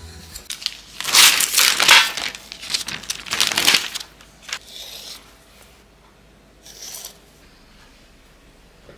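Clear plastic sheet crinkling and rustling as it is handled and peeled off rolled-out chocolate pastry dough, loudest from about a second in for three seconds, then a few faint rustles.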